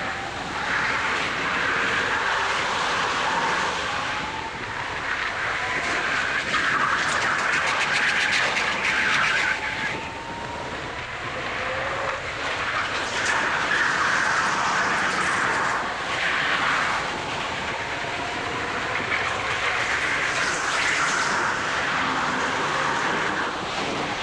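Go-kart driven at racing speed, its motor note and the rush of the run swelling and easing every few seconds through the corners.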